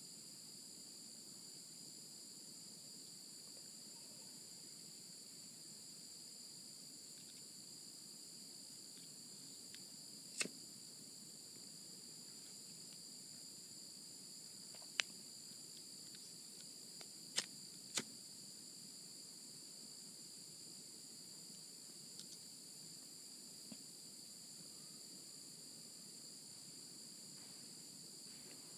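Insects droning steadily in the forest, a faint high-pitched chorus on two even pitches. A few short, sharp clicks stand out around the middle.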